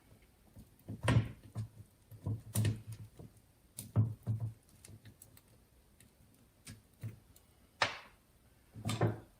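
Metal gearbox parts being handled and set down on a workbench: a dozen or so scattered clinks and knocks in small clusters, with short quiet gaps between them.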